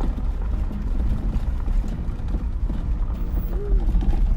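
Vehicle driving slowly over a rough dirt road: a steady low rumble with many small knocks and rattles.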